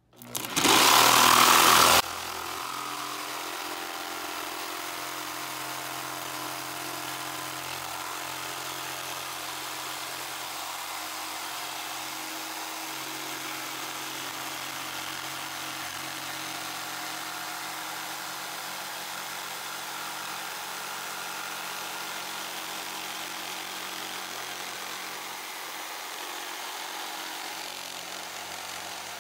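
Corded electric jigsaw cutting a curve through plywood, the blade sawing up and down. It starts with a very loud burst lasting about two seconds, then runs steadily at a lower level.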